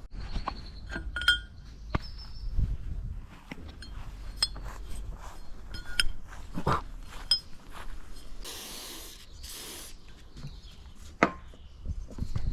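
Small metal parts and tools clinking and tapping, some strikes ringing briefly, with two short hisses about two-thirds of the way through.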